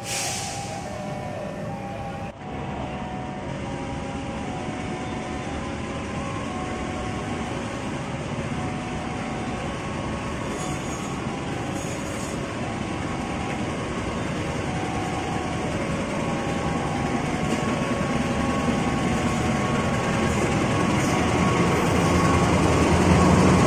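A KAI CC206 diesel-electric locomotive hauling a long-distance passenger train, coming closer through the station. The rumble of its engine and wheels grows steadily louder.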